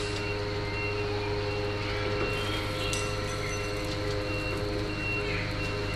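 Motor-driven rotisserie spit turning over a charcoal bed: a steady mechanical hum, with short high squeaks recurring about once or twice a second.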